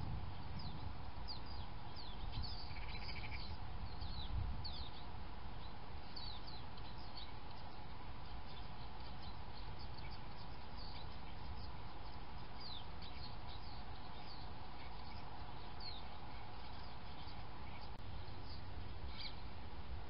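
Small garden birds at seed feeders giving many short, high, thin chirps, scattered irregularly, over a steady low background rumble and a faint hum.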